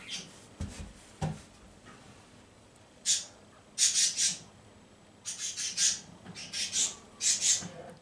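Cockatiel giving short, raspy, hissy chatter in quick groups of bursts, starting about three seconds in. A few soft low thumps come in the first second and a half.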